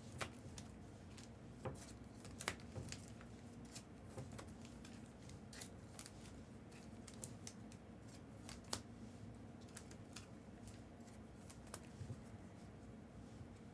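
Faint, irregular clicks and light rustling of trading cards being handled and sorted by hand, with scattered sharper ticks a few times in a couple of seconds.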